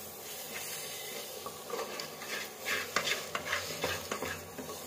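Wooden spatula stirring and scraping a thick spice paste around a steel kadhai, in repeated strokes that come thickest in the second half. The paste sizzles low as it fries in oil.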